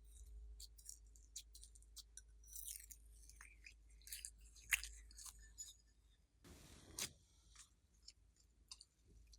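Glossy slime being handled and mixed: scattered soft clicks and small wet pops, with one longer squelch about two-thirds of the way through.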